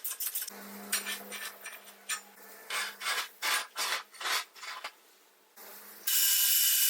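Irregular rasping strokes, like metal being filed or scraped by hand. About six seconds in, a louder, steady high-pitched hiss from a running power tool starts suddenly.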